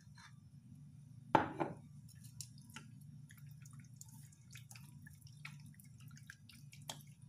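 Hands mixing chicken pieces in a soy and oyster sauce marinade in a stainless steel bowl: scattered wet squelches and small clicks, with one louder knock about a second and a half in. A low steady hum runs underneath.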